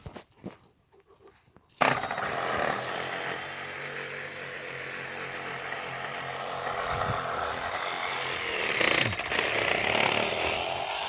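A small engine running steadily at a fairly even speed. It cuts in suddenly about two seconds in.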